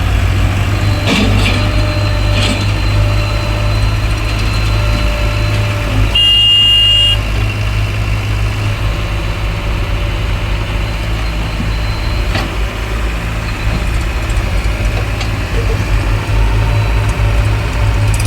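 JCB 3DX backhoe loader's diesel engine running steadily. About six seconds in a high beep sounds for about a second, and there are a few short clicks.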